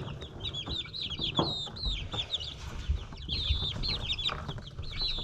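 A brood of baby chicks peeping nonstop, many short high chirps overlapping with hardly a break.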